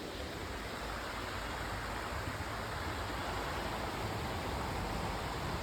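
Steady rush of river water flowing over rocks, an even noise that grows slightly louder.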